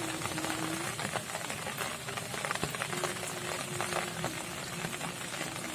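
Light rain pattering, many small irregular drop taps over a steady hiss, with a low wavering tone that comes and goes.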